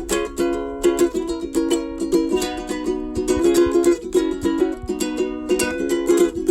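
Background music of rapidly plucked strings, with quick sharp notes over ringing chords.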